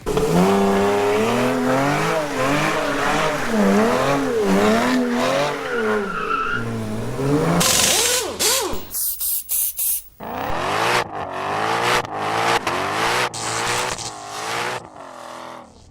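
A car engine revving up and down with tyre squeal, the pitch swinging repeatedly for the first several seconds, then breaking into a series of short, abruptly cut clips of rising revs.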